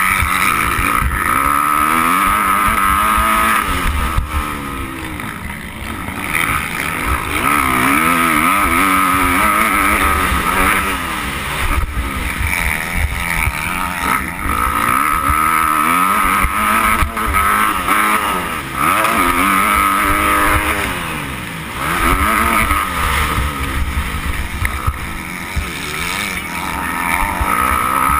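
Motocross bike engine, heard from on board, revving up and down over and over as the rider accelerates and backs off around a dirt track.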